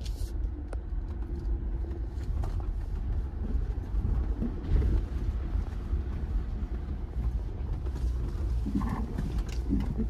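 Jeep driving slowly over a rough dirt trail: a steady low engine and drivetrain rumble with scattered knocks and rattles, which the driver puts down to the wooden bed platform sliding around in the back.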